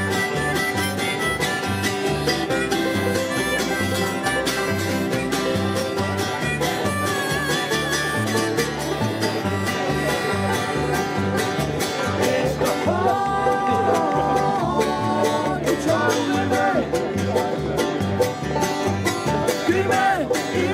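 Bluegrass string band playing: banjo, strummed acoustic guitar and plucked upright bass over a steady two-beat bass line, with a neck-rack harmonica leading. Voices come in singing about two-thirds of the way through.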